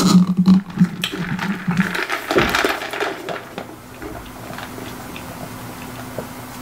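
A low, steady hum for about two seconds while the lid of an insulated tumbler is twisted, then a click and a short rush of noise as the tumbler is raised, followed by soft sipping and swallowing from it.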